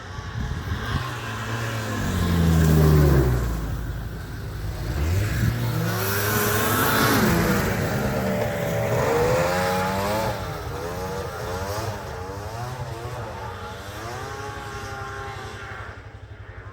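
Snowmobile engines revving as the sleds race past. One passes close and loudest about three seconds in, then engines rise and fall in pitch as the riders work the throttles.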